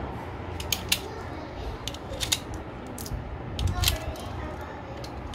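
Irregular sharp metallic clicks as .32-bore cartridges are thumbed one by one into a CZ pistol magazine against its spring, with a small cluster of clicks a little past halfway.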